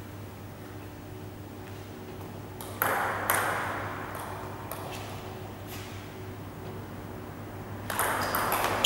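Table tennis ball clicking now and then as it is bounced and tapped between points, over a steady low hum of the hall. A louder, short burst of noise fades about three seconds in, and more noise builds near the end.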